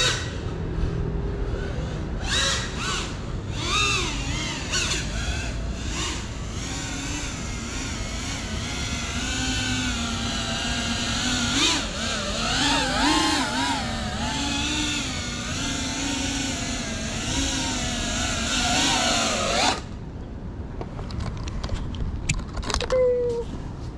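FPV quadcopter (GEPRC CineLog 35) motors whining, several tones rising and falling together as the throttle changes. The whine cuts off suddenly about 20 seconds in. After it come a few clicks and a short falling tone near the end.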